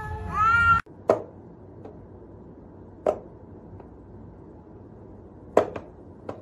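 A cat's yowl, rising in pitch, breaks off under a second in. Then come a few sharp wooden knocks a second or more apart, two close together near the end, as a cat paws at a wooden whack-a-mole toy whose mice pop up from the holes.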